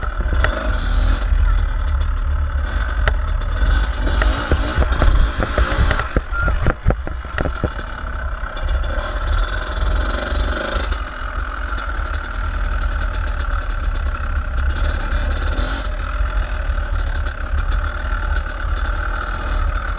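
Dirt bike engine running steadily at low speed close by, over a heavy low rumble, with a quick cluster of knocks about six to seven seconds in.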